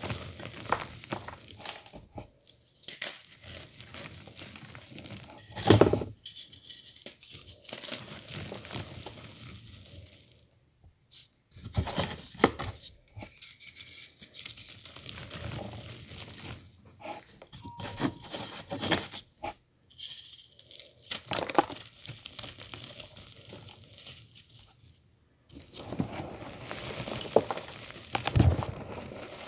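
Reformed gym chalk being crushed and crumbled by hand, with gritty crunching and loose powder sifting and pattering down through the fingers in irregular bursts. The loudest crunch comes about six seconds in.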